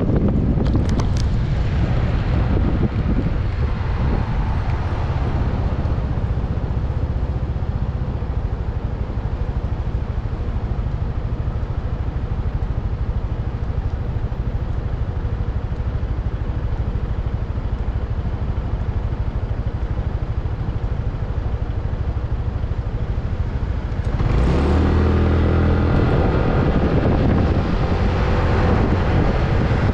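Yamaha NMAX scooter's single-cylinder engine and road noise while riding, with a steady low wind rumble on the microphone. About three quarters of the way in the engine picks up with a rising note as the scooter accelerates.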